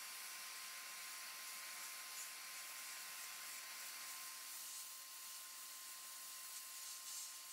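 Sandblasting gun in a blast cabinet blowing abrasive grit onto a rusty steel hammer head: a steady hiss with a faint steady tone underneath.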